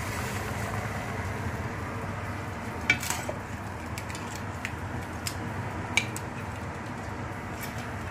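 Metal serving spoon clinking and scraping in a stainless steel pan as cooked razor clams in their shells are dished onto a plate. A few sharp clinks stand out, the loudest about three seconds in and another about six seconds in, over a steady low hum.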